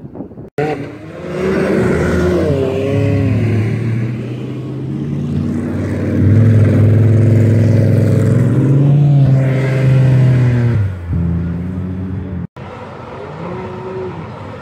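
Dune buggy engine revving hard, its pitch rising and falling as it drives up a sand dune, loudest in the middle. It cuts off abruptly near the end, and a fainter engine sound follows.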